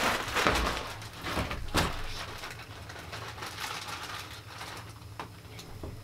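Rustling and handling noise with a couple of sharp knocks in the first two seconds, then quieter with only a faint hiss and one more click near the end.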